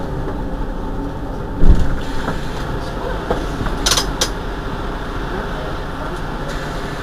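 Mercedes-Benz Citaro G articulated city bus idling at a stop with a steady low engine rumble. A single loud thump comes about two seconds in, and a couple of brief sharp sounds follow about four seconds in.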